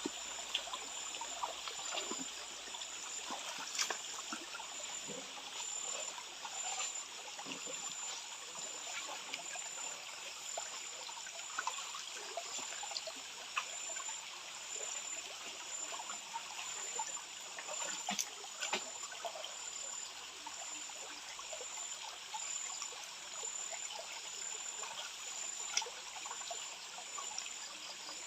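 Shallow stream water trickling steadily, with scattered sharp knocks and small splashes, and a faint high-pitched pulsing tone running underneath.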